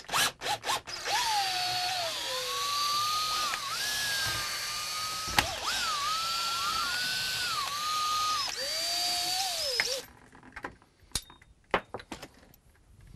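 Cordless drill driver backing out the screws that hold a caravan rooflight's inner frame, running in bursts with its motor whine rising and falling in pitch as the trigger is worked, and a sharp click about five seconds in. It stops about ten seconds in, followed by a few light clicks and knocks.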